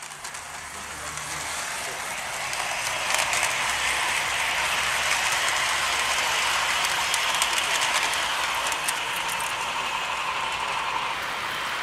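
Model train running on its track: a steady whirr of the locomotive's motor, gears and wheels on the rails, with faint ticking, that grows louder over the first few seconds as the locomotive approaches and then holds.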